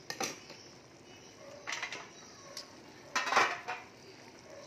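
Metal ladle clanking and scraping against a metal cooking pot in three short bursts, the loudest a little over three seconds in.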